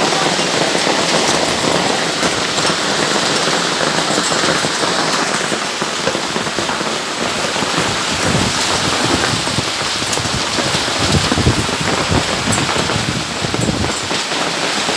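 Hail and heavy rain pelting down in a steady, dense hiss, dotted with sharp ticks of hailstones striking. From about halfway through, low gusts of strong wind rumble in as well.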